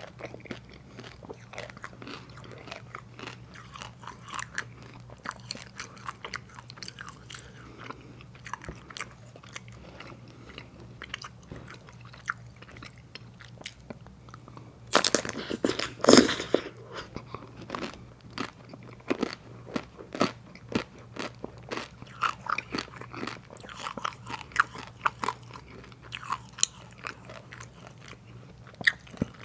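Close-miked eating of soft-serve cones with a hard dipped coating: wet mouth clicks and chewing throughout, with a loud crunching bite about fifteen seconds in as the chocolate-dipped shell cracks.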